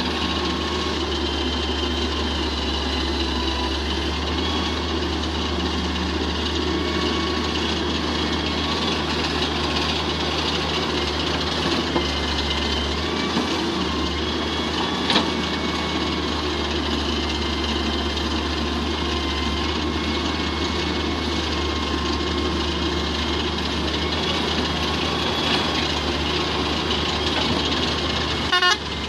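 Diesel engine of a Hitachi UH04 wheeled excavator running steadily under load as the machine digs and swings its bucket of soil, with a few sharp knocks and a short rattle near the end.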